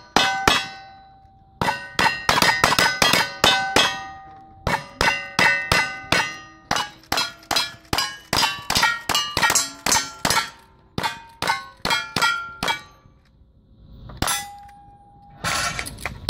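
Rapid strings of gunshots from two cowboy action shooters' guns, each hit answered by the ringing clang of a steel plate target. The strings break briefly about a second in and around four seconds, with a longer lull shortly before a last few shots near the end.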